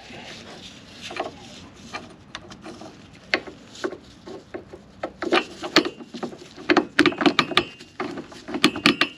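Metal towbar parts and bolts being handled and offered up: scraping at first, then from about five seconds in a quick run of sharp knocks and clinks, some with a brief metallic ring.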